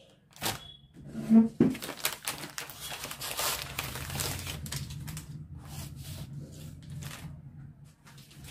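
Clear plastic sheet protector crinkling and rustling as it is handled and a paper drawing is slid about inside it, with a brief thump about a second and a half in.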